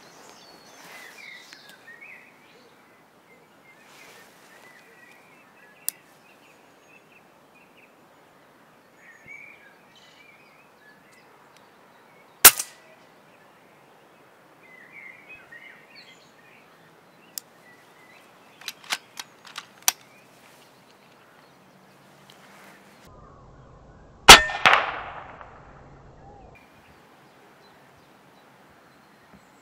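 Two shots from a moderated FX Impact MkII PCP air rifle, about twelve seconds apart, each a sharp crack; the second trails off in a short ringing smear. Between the shots comes a quick run of sharp clicks.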